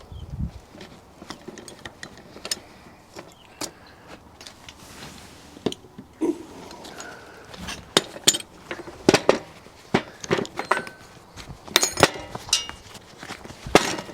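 Metal clinks and sharp knocks from handling a lead-casting mould and its tools, a few ringing briefly; scattered at first, then quicker and louder in the second half.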